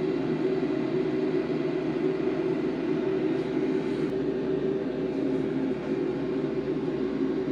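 BMW K1600 GT's inline-six engine idling steadily.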